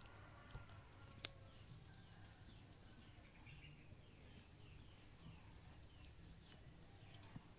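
Near silence with a faint low hum. A bird gives a run of faint, short falling chirps through the middle, and there is one sharp click about a second in.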